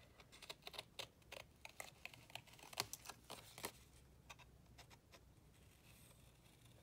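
Scissors snipping through scrapbook paper in short, irregular, faint clicks. Most of the snips fall in the first three and a half seconds, with only a few fainter ones after.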